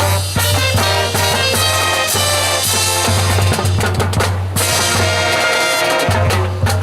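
Fire-brigade marching band playing a lively drill number: brass instruments over drums with bass drum and rimshots.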